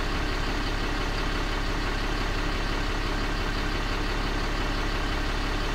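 Ram 3500's Cummins 6.7-litre straight-six turbodiesel idling steadily, heard from inside the cab, running just after a new turbocharger and actuator were fitted.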